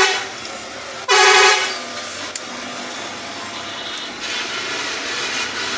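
A vehicle horn honks twice: the end of one blast right at the start, then a half-second blast about a second in, over steady outdoor traffic noise.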